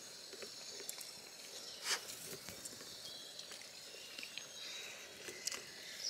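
Someone eating with a fork from a plate: a few faint, sharp clicks of the fork against the plate, the loudest about two seconds in, over a quiet background hiss.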